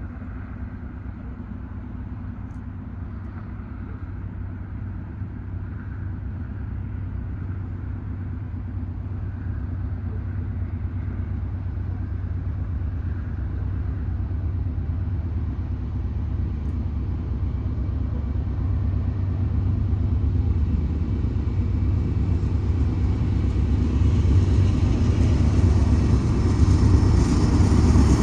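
Approaching BNSF freight train: the diesel locomotives' low engine rumble grows steadily louder as the train draws near.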